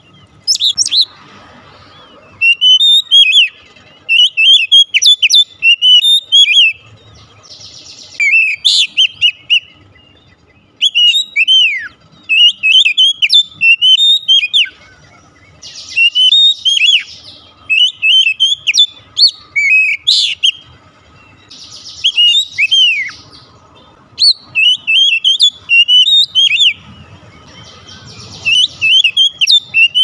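Oriental magpie-robin singing in full voice: loud phrases of clear whistled notes, each phrase a second or two long with short pauses between, mixed with a few harsh, buzzy notes.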